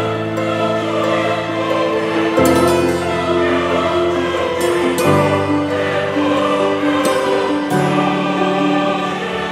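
Background music: a choir sings sustained chords that change about every two and a half seconds, with a melody over them.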